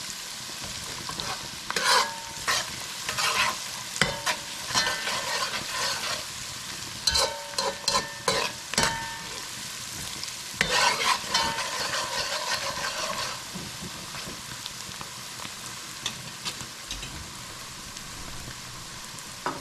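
Onions sizzling in hot oil in a pot, being browned until they char a little, while a spoon scrapes and knocks against the pot in bouts of stirring. The stirring stops about two-thirds of the way through, leaving the steady sizzle.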